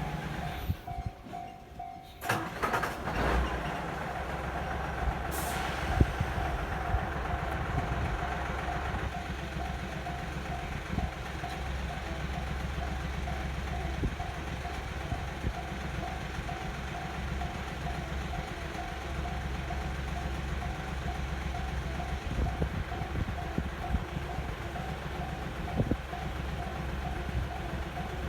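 Railway level-crossing warning bell ringing in a steady, evenly repeating clang, over a low rumble that sets in about three seconds in.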